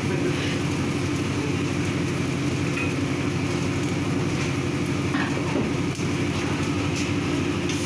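Gas stove burner running with a steady roar under a wok of frying noodles, with a faint hiss over it.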